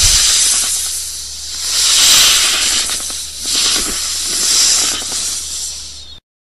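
A snake hissing in long breathy hisses that swell and fade, about four in six seconds, over a faint low hum. The hissing cuts off abruptly near the end.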